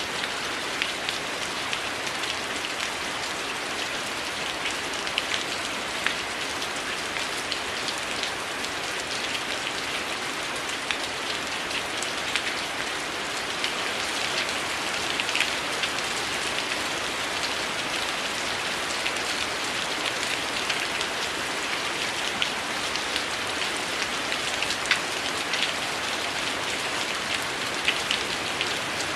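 Heavy rain falling steadily, an even hiss scattered with many short sharp ticks.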